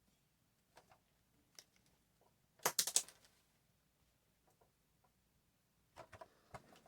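Small handling noises: scattered light clicks and taps, with a brief louder rustle about two and a half seconds in and a few more clicks near the end.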